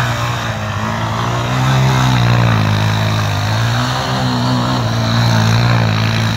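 A 250 cc ATV engine revving up and down in slow waves as the quad spins round in circles with its wheels slipping in snow and mud.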